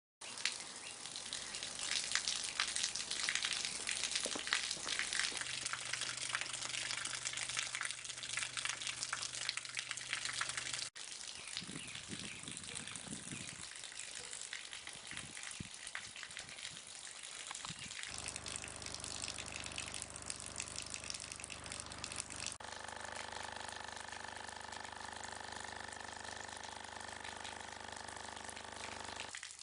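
Steady rushing, splashing water noise, crackly at first. It changes abruptly about 11, 18 and 23 seconds in, as one sound-effect segment gives way to the next.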